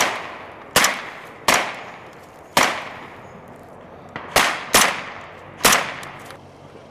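Rifles firing blank rounds through yellow blank-firing adaptors: about eight single shots at an irregular pace, each dying away in a short echo.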